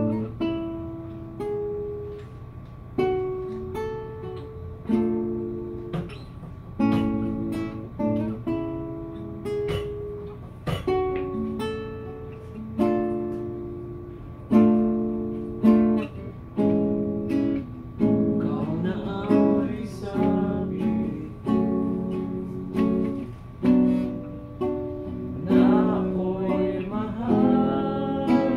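Acoustic guitar strummed, with a strong chord stroke about once a second and the chords changing every second or two.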